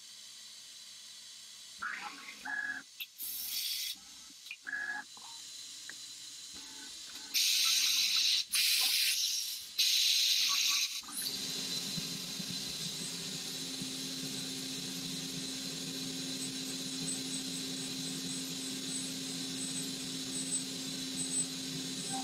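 CNC milling machine cutting a metal dome under coolant. Short tones and hissing bursts come first, then loud hissing of coolant spray for a few seconds near the middle. After that the spindle runs with a steady hum under a constant hiss.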